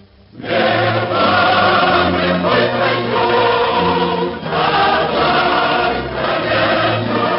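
Background music with choir-like singing in long held chords over a low bass line, coming in loud about half a second in after a brief dip.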